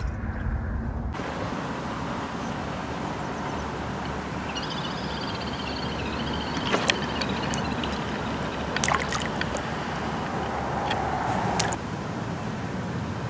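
Steady outdoor background noise by open water, broken by a few sharp clicks and, near the middle, a brief high warbling chirp.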